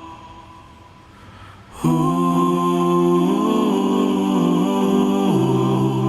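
Sustained melodic tones with a hummed, chant-like quality. A held note fades away at first; a new note starts suddenly about two seconds in, slides smoothly through a few pitches, and settles on a lower note near the end.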